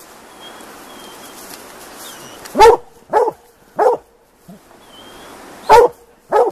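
Plott hounds barking treed at a mountain lion: short, loud barks, three in quick succession a little past halfway and two more near the end.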